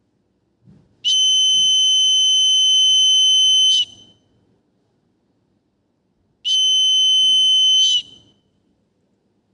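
Electronic buzzer of a gas-sensor fire alarm sounding a steady high-pitched tone twice: about three seconds starting a second in, then a second and a half near the end. It signals that the sensor has detected smoke or gas.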